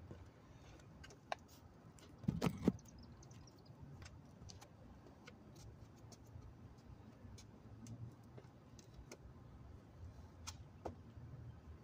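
Quiet outdoor background with a faint low rumble and scattered light ticks, broken by a short cluster of knocks and rustling about two seconds in.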